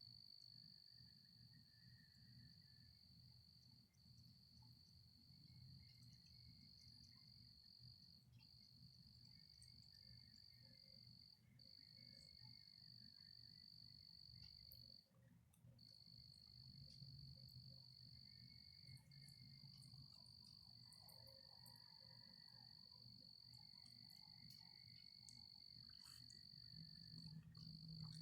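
Faint night chorus of insects: a steady high-pitched trill that breaks off briefly every few seconds, with fainter, shorter trills lower down.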